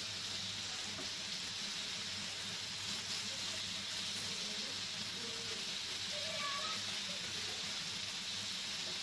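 Kefta patties sizzling steadily in a little oil on a hot griddle pan.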